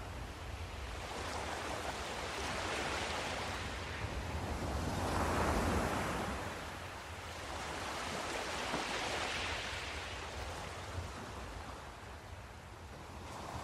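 A rushing noise that swells and fades every few seconds over a steady low rumble.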